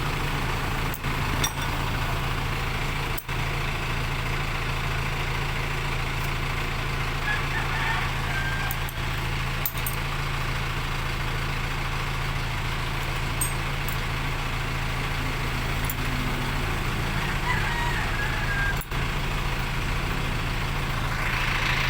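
An engine idling steadily, a constant low hum that does not rise or fall.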